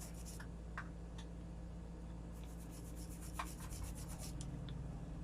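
Dry scrubbing on the contacts of a TV's LVDS ribbon connector, cleaning away dirt and eraser residue. It comes as short scratchy strokes, with a quick run of them in the middle.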